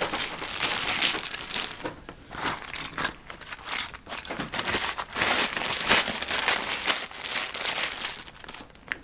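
Plastic bags of small metal tool pieces being gathered and handled: crinkling plastic with light metallic clinking from the parts inside.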